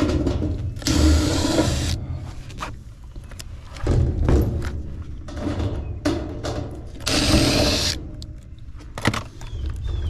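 Hands and tools working at the sheet-metal cabinet of an outdoor heat-pump unit: knocks and clicks over a rumbling handling noise. Two short rasping bursts come about a second in and about seven seconds in.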